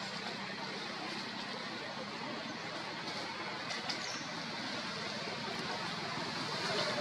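Steady outdoor background noise: an even hiss with a faint low hum underneath and a few faint ticks about four seconds in, with no distinct sound standing out.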